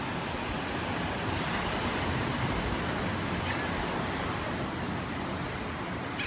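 Steady rush of wind and distant surf breaking on the beach. A bird calls faintly once, about halfway through.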